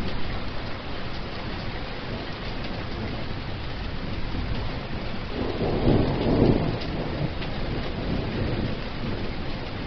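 Steady heavy rainfall hiss, with a low rumble of thunder swelling about five and a half seconds in and dying away a second or two later.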